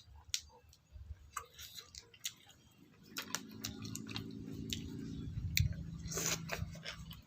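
Chewing and mouth clicks while eating, a run of small sharp smacks and crunches. A low steady hum joins about three seconds in and fades about two seconds later.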